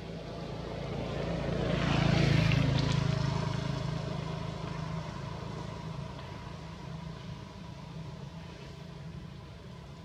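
A motor vehicle passing by: its engine hum and road noise swell to a peak about two seconds in, then fade slowly, leaving a steady low engine hum.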